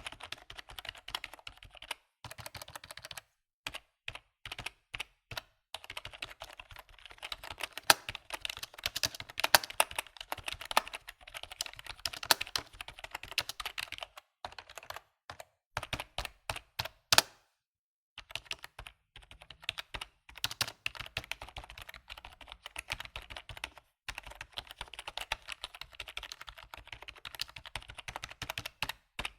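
Computer keyboard typing: quick runs of key clicks broken by short pauses, with a few slower single keystrokes between runs.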